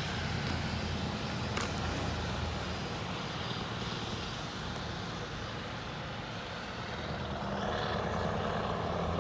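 Scania R500 V8 diesel truck driving away, its engine a low, steady drone that fades with distance and swells slightly again near the end.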